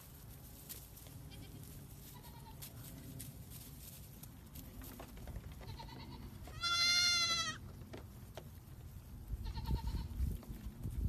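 A goat kid bleating: one loud, high, quavering bleat lasting about a second near the middle, with a few fainter, shorter bleats before and after it.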